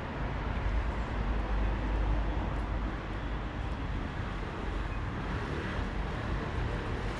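Steady low rumble of road traffic with no distinct events.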